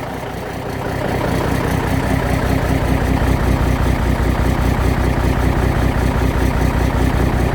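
Cummins big cam inline-six diesel idling with a rhythmic whoop, whoop in the exhaust, a little louder after the first second or two. The beat is a direct skip: number 3 cylinder is not firing, which the mechanic puts down to bad injectors.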